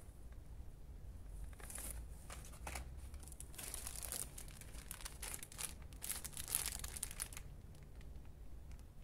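Plastic packaging crinkling and rustling in irregular bursts as it is handled: a plastic bag holding a pair of sports socks.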